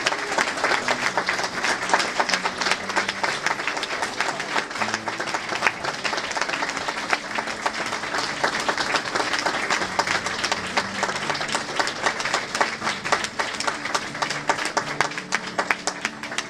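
A roomful of people applauding: dense, steady clapping with a few voices talking underneath, starting to thin out near the end.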